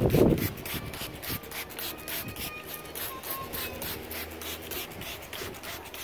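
Plastic trigger spray bottle misting water onto a child's dreadlocks, pumped rapidly: a quick, even run of short hisses, about five a second. A brief low thump sits at the very start.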